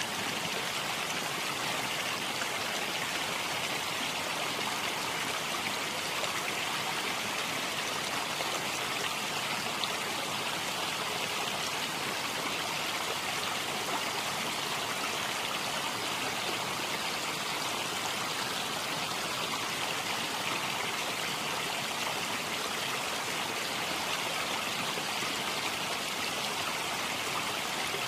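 Steady, unchanging rushing sound like running water, an even hiss with no pauses.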